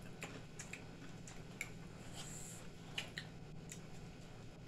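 Faint mealtime handling sounds: scattered soft clicks and crinkles of hands and a wooden utensil working food in paper takeout boxes, with a brief hiss about two seconds in, over a low steady hum.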